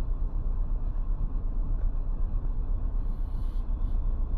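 Steady low rumble inside a vehicle's cab from its engine running.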